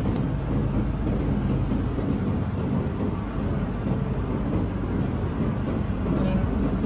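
Steady low rumble of supermarket background noise by the refrigerated meat cases.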